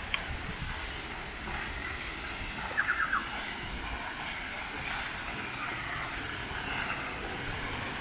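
Steady hiss of rushing water from a waterfall. A quick run of four short, high squeaks comes about three seconds in, and a single one comes right at the start.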